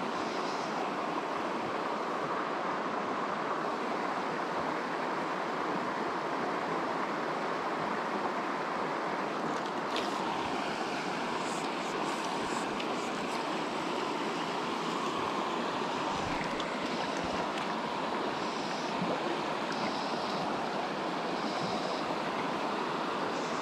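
River water flowing steadily over a rocky bed: an even, constant rush of current.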